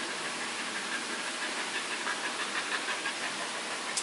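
A Thai Bangkaew dog panting, over a steady hiss of background noise.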